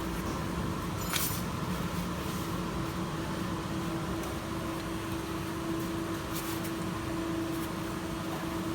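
Steady hum of running factory machinery with a constant low tone, and one sharp click about a second in.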